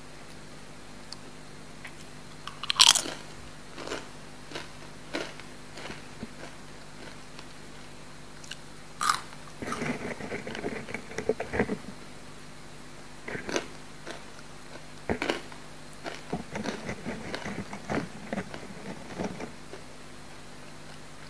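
Close-miked crunchy eating: a loud crunching bite into a tortilla chip about three seconds in, followed by a few crunching chews. In the second half come more bursts of crunchy chewing as coated green peas are eaten.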